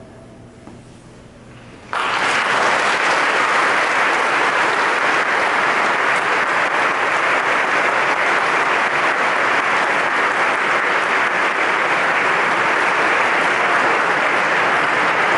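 The last sung chord fades in the church's reverberation, then about two seconds in an audience breaks into applause that stays steady and full to the end.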